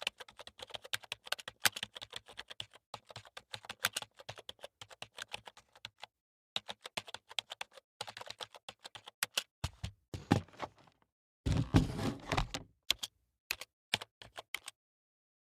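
Typing on a computer keyboard: fast, continuous key clicks for the first several seconds, a brief pause, more typing, then a louder, deeper clatter of heavy keystrokes about ten seconds in. A few separate key presses follow before it stops.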